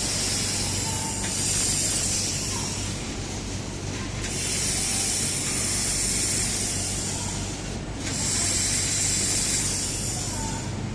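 Automatic robot-arm laser welding machine at work: a high hiss that starts and stops in three spells of a few seconds each, over a steady low machine hum.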